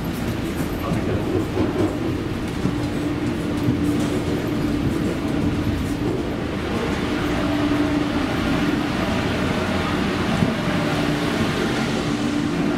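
Steady rumbling noise inside an airport jet bridge, with a low steady hum that drops out and comes back several times.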